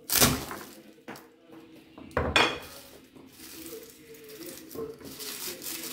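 A knife blade knocking down onto garlic cloves on a wooden cutting board: two loud knocks, one at the start and one about two seconds in, with a lighter one between. From about three seconds in, the papery garlic skins rustle and crackle as they are peeled off by hand.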